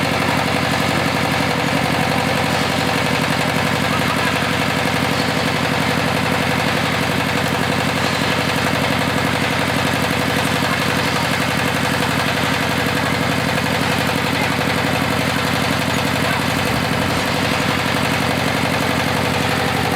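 Engine of a GY-200-1A engineering drilling rig running steadily at a constant speed.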